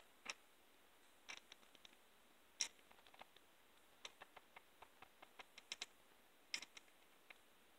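Faint, irregular light clicks and ticks of small metal parts of a Craftsman half-inch-drive ratchet being handled and wiped with a rag, some coming in quick runs of several clicks.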